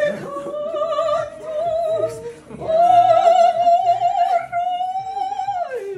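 A soprano voice singing operatically with wide vibrato: a few short phrases, then a long high note held for about three seconds that slides down near the end.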